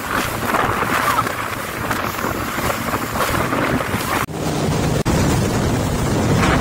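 Jet ski ride over choppy sea: wind buffeting the microphone and water rushing and splashing. After a brief dropout about four seconds in, a jet ski engine drones steadily as the craft speeds past, throwing spray.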